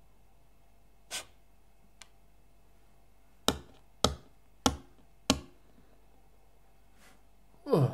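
Sparse, sharp hand-made taps: one about a second in, then four evenly spaced knocks about two-thirds of a second apart, like timed footsteps. Near the end comes a short sound that slides down in pitch.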